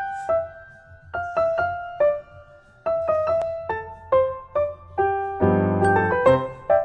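Background piano music: a gentle melody of single struck notes, thickening into fuller chords about two-thirds of the way in.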